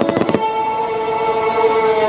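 A rapid run of crackling firework reports in the first half second, over classical music with long held notes played for a starmine display.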